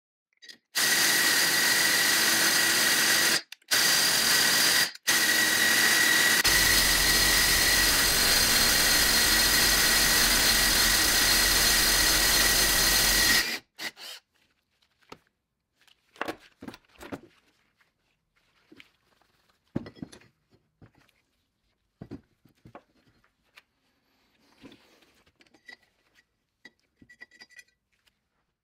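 A power tool runs loudly and steadily for about thirteen seconds, cutting out briefly twice, then stops. After it stops there are scattered light clicks and knocks of parts being handled.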